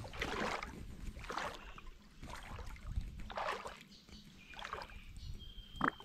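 Legs wading through shallow lake water, a swish and slosh with each stride about once a second.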